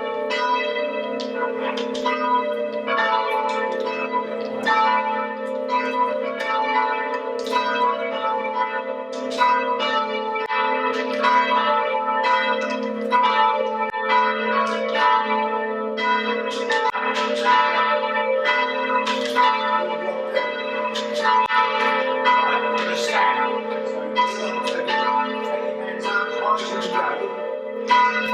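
Three church tower bells rung on ropes by learner ringers, striking one after another in a continuing round, about one stroke every second or a little faster, with the bells' hum notes ringing on beneath the strokes.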